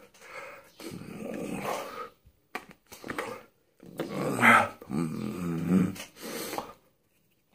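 A man's voice making non-word sounds in several short bursts with pauses between them.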